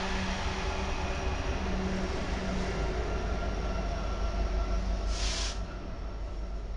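Kansas City Southern diesel locomotives passing close by: a steady engine drone with low humming tones over rolling wheel noise, then double-stack container cars rolling past. A brief hiss about five seconds in.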